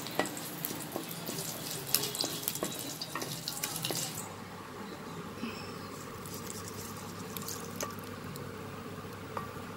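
Curry leaves, mustard seeds and urad dal crackling and sizzling in hot oil for a South Indian tempering, with many sharp pops. The crackling dies down about four seconds in, leaving a fainter hiss with an occasional tick.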